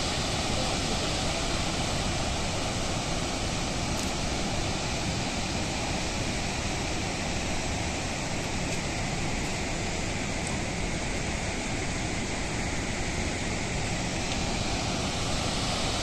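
Mallalli Falls, a tall waterfall in heavy flow, pouring down a rock face: a steady, even rush of falling water.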